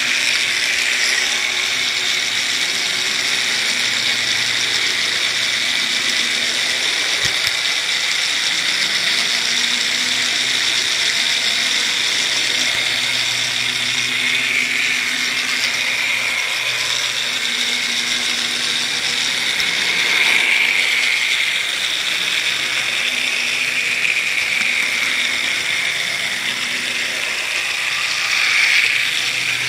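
An N gauge model train's small electric motor whirring steadily as it runs along the track, swelling briefly a couple of times.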